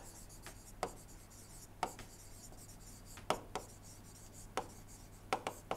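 Faint, scattered taps and short strokes of a stylus on a pen tablet while words are handwritten: about ten light clicks spread unevenly over a few seconds.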